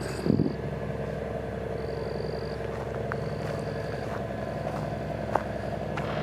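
Steady motor hum, like an engine running somewhere nearby, with a brief thump just after the start and a thin high tone that comes and goes.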